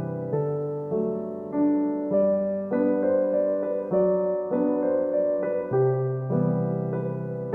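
Background music: a soft piano playing chords, a new chord struck about every half second to second, each dying away.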